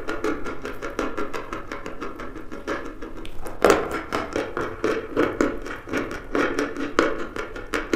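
Dry chalk being bitten and chewed close to the microphone: a quick, irregular run of crisp crunches, the loudest about three and a half seconds in.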